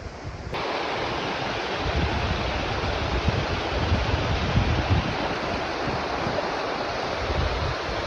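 Fast, shallow mountain stream rushing over rocks: a steady hiss of white water, starting about half a second in.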